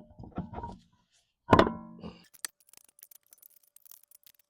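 Metal tools and parts clanking together with a ringing tone: a few clanks at first, one loud ringing clank about a second and a half in, then faint light clicks.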